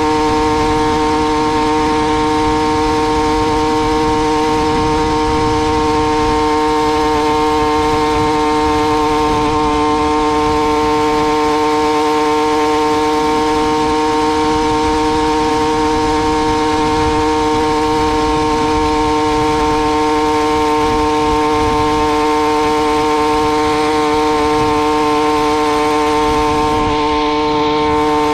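Two-stroke motorized bicycle engine running at a steady, unchanging speed.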